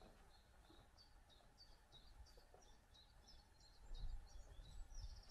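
Near silence, with faint, repeated short high chirps of a small bird in the background and a soft low bump about four seconds in.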